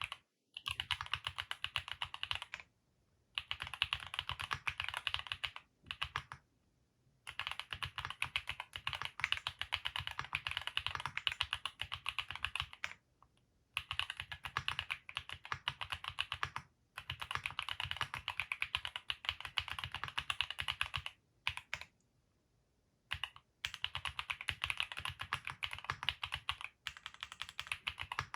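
Typing on a Vertex Arc60 custom mechanical keyboard with Haimu Sea Salt linear switches. The keystrokes come fast and steady in runs of a few seconds, broken by several short pauses.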